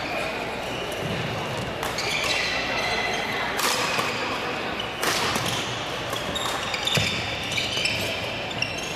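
Badminton doubles rally: racket strikes on the shuttlecock as sharp cracks at irregular intervals and sneakers squeaking on the court floor, echoing in a large gym over a murmur of voices.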